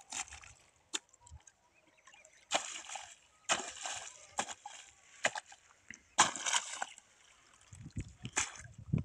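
A hoe chopping and scooping wet mud in a shallow irrigation channel, piling it into a bund to divert the water: irregular wet slaps and splashes with a few sharp strikes, and low thuds near the end.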